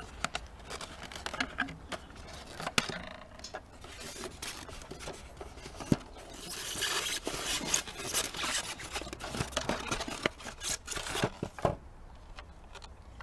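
Unpacking noise: wire twist ties being untwisted and a plastic toy fire engine scraping and rubbing against its polystyrene packing tray, with scattered sharp clicks and a louder stretch of rustling and scraping about six seconds in.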